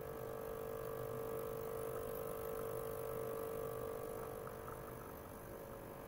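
Ultrasonic cleaning tank running, with a glass bottle of water and ultrasonic probes in its bath: a steady hum with one clear mid-pitched tone that weakens near the end.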